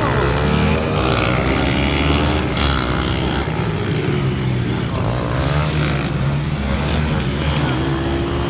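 Several motorcycle engines running and revving, their pitch rising and falling over a steady low engine sound.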